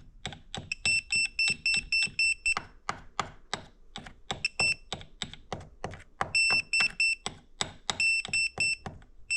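Electronic EMF detector alarming: short high-pitched beeps, about five a second, come in several bursts, over a steady clicking of about four clicks a second. This is a meter signalling high readings, which its user takes for an EMF attack at the door.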